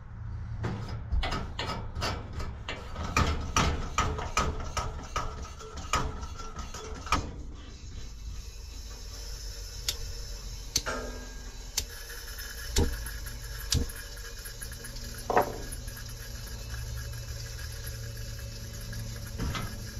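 Coleman Dual Fuel camp stove being pumped up: a quick run of clicking pump strokes on the fuel tank's plunger, about three a second for roughly seven seconds. Then a steady hiss as the fuel valve is opened and a burner is lit and flares, with a few clicks and knocks from the valve and lighting.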